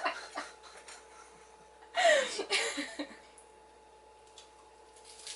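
A person's brief vocal reaction about two seconds in, a short sound falling in pitch, over a faint steady hum.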